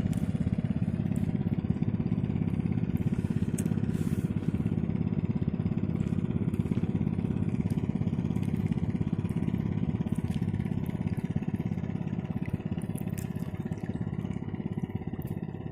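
A small engine running steadily with a fast, even pulse, easing off slightly near the end.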